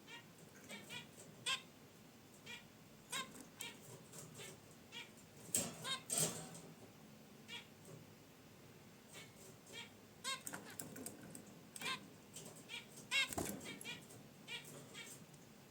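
Pet zebra finches calling in their cage: a steady scatter of short, nasal honking calls, several birds answering one another. A few louder rustles come about six seconds in and again near the end.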